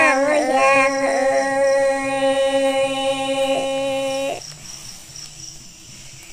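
Women singing a Red Dao folk duet, drawing out one long held note that stops abruptly about four seconds in, followed by a quiet gap.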